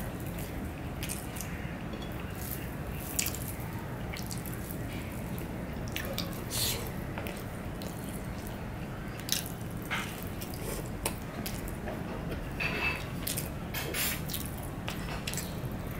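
Close-up wet eating sounds of khichuri eaten by hand: irregular short smacks, clicks and squishes from chewing and from fingers working the rice, over a steady low hum.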